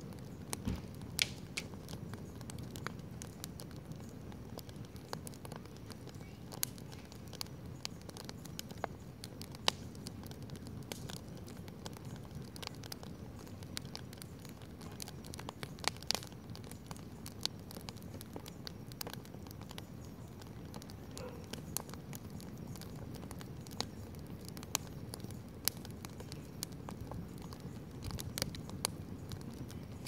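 Wood campfire burning, with irregular sharp pops and crackles over a steady low rumble.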